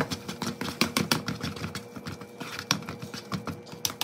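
Potato masher clicking and knocking against a bowl as boiled potatoes are mashed: several quick, irregular taps a second.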